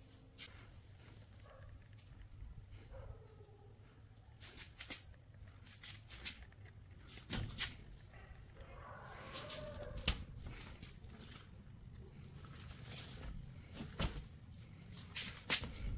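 Crickets trilling steadily at night, with a few sharp knocks and faint low voices now and then.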